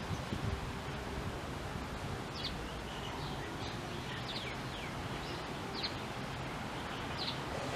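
Wind gusting through foliage, a steady rustling hiss, with short high bird chirps every second or two.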